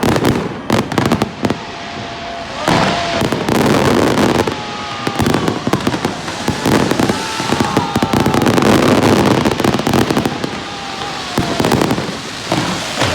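Fireworks display going off in a dense barrage: rapid bangs and crackling one after another, with wavering whistling tones over them.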